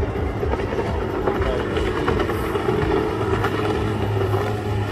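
GT-15 racing powerboats' outboard engines running hard at speed, with a falling pitch about two seconds in as one passes by, and a deeper engine note growing stronger near the end as another boat comes close.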